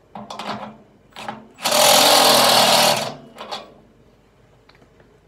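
Hand-held power drill running a step drill bit into the smoker's sheet-steel wall, widening the hole for a probe grommet. It comes in trigger bursts: a short burst, a brief blip, then about a second and a half of steady drilling, and a couple of short bursts near the end.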